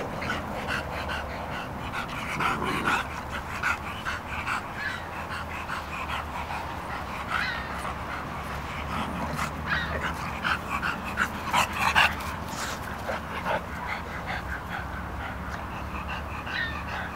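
Two English bulldog puppies wrestling in play, making many short, irregular yips and whimpers, loudest about twelve seconds in.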